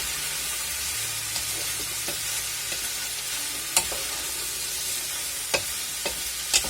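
Sliced green and yellow peppers with other vegetables and pork sizzling steadily as they are stir-fried in a pan, with a few sharp clicks, mostly in the second half.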